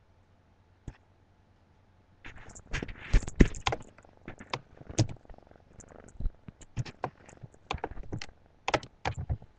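Kitten purring close to the microphone. From about two seconds in, the purring comes with many rustles and sharp clicks and knocks.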